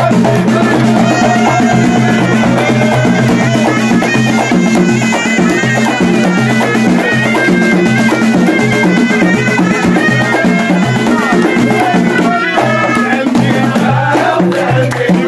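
Moroccan folk troupe playing live: hand-held frame drums, tambourine-style tars and a drum keep a steady driving beat, while a shrill wind instrument plays a stepping melody and men sing along.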